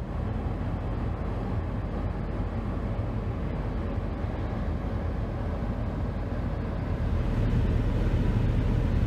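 A vehicle driving, a steady engine drone under road noise, getting louder about seven seconds in.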